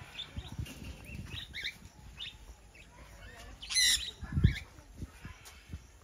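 A flock of budgerigars chirping, with short scattered chirps throughout and one louder squawk about four seconds in. A low thump follows about half a second later.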